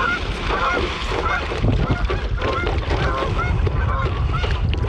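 A flock of Canada geese honking over and over as they take off, running and flapping across the lake surface.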